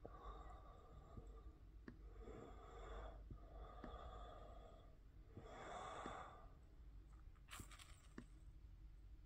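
Faint breathing close to the microphone, slow breaths coming every second or two, with a few soft clicks, sharper near the end.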